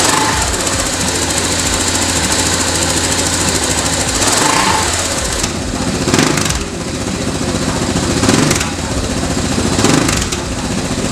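KTM 690 SMC R's single-cylinder engine running through a Wings aftermarket exhaust: a fast, even idle pulse, blipped up briefly about four times in the second half.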